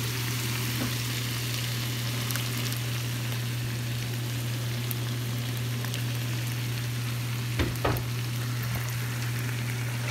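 Chicken pieces and red pepper sizzling in a frying pan as crushed tomato is stirred in with a wooden spatula, over a steady low hum. A couple of sharp knocks against the pan come about three-quarters of the way through.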